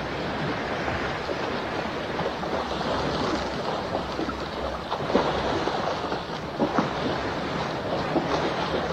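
Seawater splashing and churning as swimmers thrash in the water, over a steady wash of open sea, with a few sharper splashes in the second half.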